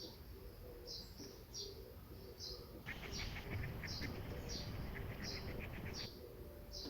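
A small bird calling over and over, short high chirps about one and a half a second. In the middle a rapid dry clicking joins in for about three seconds, then stops.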